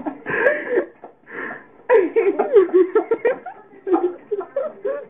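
People laughing in several bursts.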